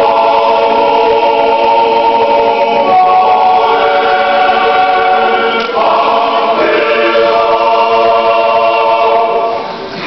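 Church choir singing a hymn in sustained chords, moving to new chords a few times and easing off near the end.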